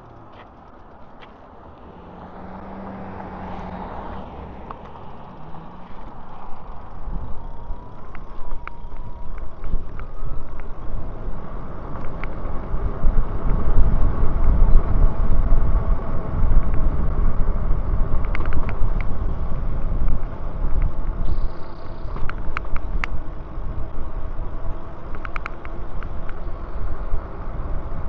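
Wind buffeting the microphone of a moving e-bike, building from quiet to loud as the bike picks up speed, with a thin whine rising in pitch about eight to twelve seconds in and a few sharp clicks in the second half.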